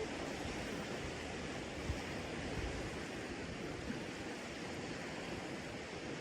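Steady rushing noise of water and wind, with a couple of faint knocks.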